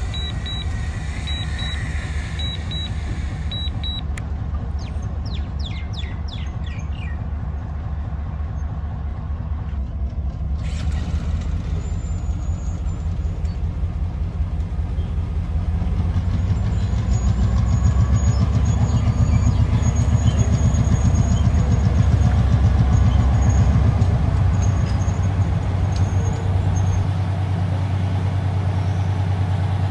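Diesel locomotive engine running with a low, pulsing rumble as it moves slowly along the track. The rumble grows louder through the middle and eases a little near the end.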